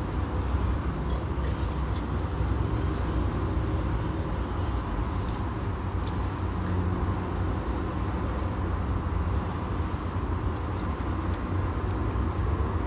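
Steady low rumble of distant city traffic, with a few faint clicks over it.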